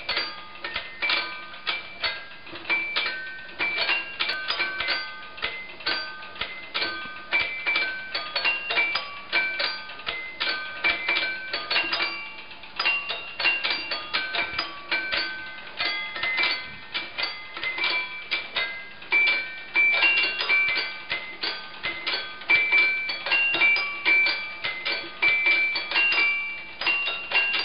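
Hand-cranked girophone, a small mechanical music machine, striking its twelve tuned blades one after another in a quick tune of several notes a second. Each note rings briefly over the clicking of the mechanism.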